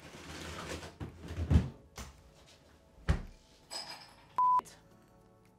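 Two dull knocks about a second and a half apart, with a few faint clicks, then a short electronic beep at one steady pitch.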